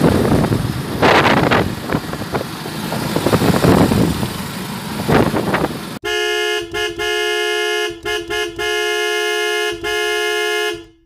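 Road and wind noise from a moving vehicle. About six seconds in, a vehicle horn starts sounding in long blasts with a few short breaks, then stops near the end.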